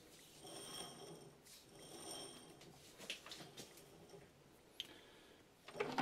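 Faint sounds of a metal lathe's chuck and spindle being turned slowly by hand: three soft rubbing swells about a second and a half apart, then a few light metallic clicks and a sharper knock near the end.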